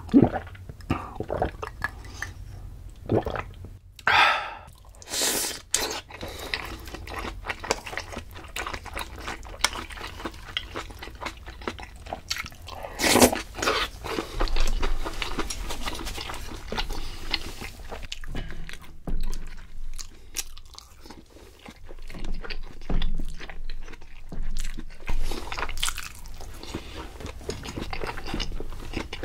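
Close-miked eating sounds: a person chewing and biting food, with crunchy bites at irregular intervals.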